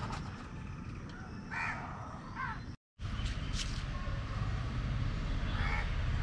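Crows cawing: two short caws about one and a half and two and a half seconds in, and two more near the end, over a steady low rumble. The sound cuts out briefly about three seconds in.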